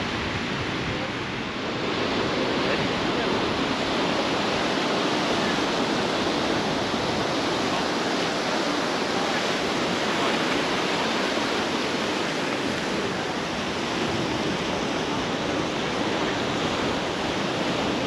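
Ocean surf breaking and washing onto a beach, a steady rush of noise.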